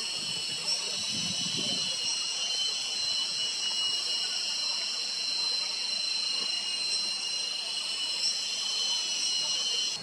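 Steady, shrill drone of an insect chorus, holding several high pitches without change, with a couple of faint clicks.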